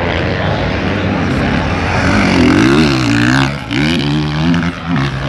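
Motocross bike engines racing. From about two seconds in, one bike's engine note climbs and falls several times as the rider works the throttle and shifts gears.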